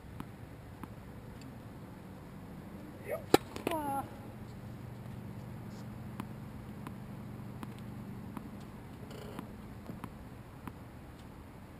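A tennis racket hits a ball once with a single sharp crack about three seconds in, with a brief shout around the hit. Faint light taps come now and then over a low steady hum.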